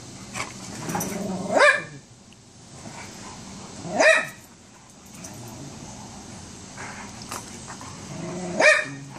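Two dogs play-fighting, growling, with three loud, short barks spread through the struggle.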